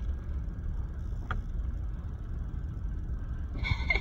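Low, steady rumble of a vehicle's engine and road noise heard from inside the cab, with a brief higher-pitched sound near the end.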